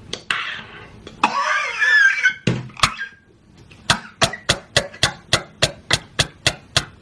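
A man lets out a loud, wavering cry as if choking on a drink, then a rapid, even run of sharp clicks follows, about four a second.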